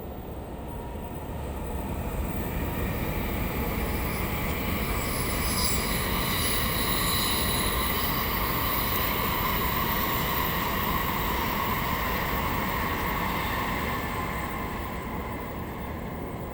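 Diesel-hauled train passing, a JR Freight DE10 locomotive on the line: a steady rumble with a whine rises over a few seconds, holds, then fades away.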